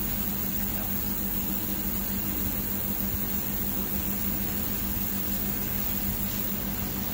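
Steady hum and hiss of a running fan, with a constant low tone under it.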